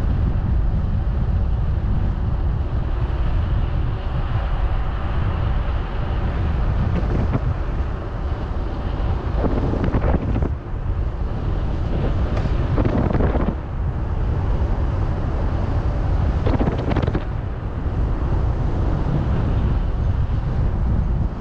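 Wind buffeting the microphone of a camera on a moving bicycle: a steady low rumble with a few brief louder rushes about ten, thirteen and seventeen seconds in.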